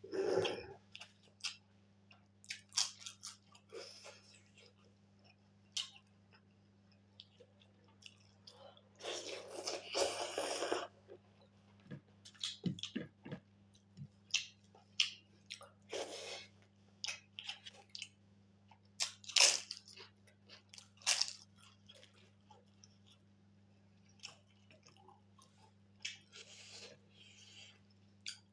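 Close-up mouth sounds of a person eating pork and rice: irregular chewing and crunching with scattered short clicks, over a steady low hum.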